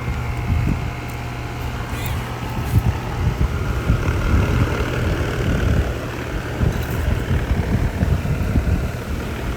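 Outdoor air-conditioning condensing unit running with a steady low electrical hum from the compressor and the rushing air of the condenser fan, with gusty rumble beneath. The unit is running again now that a new contactor is pulling in.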